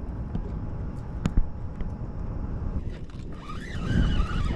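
Wind rumbling on the microphone of a body-worn camera, with a sharp knock a little over a second in.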